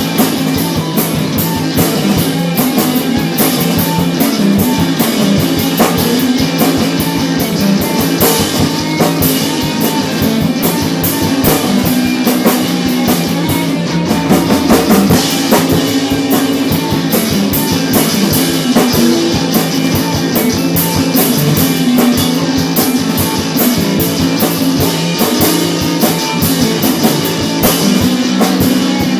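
A rock band playing: a drum kit keeps a steady beat under guitar and bass lines.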